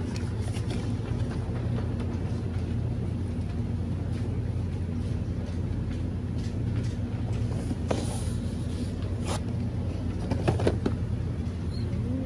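Steady low hum of supermarket background noise, with a few brief clatters about two-thirds of the way through.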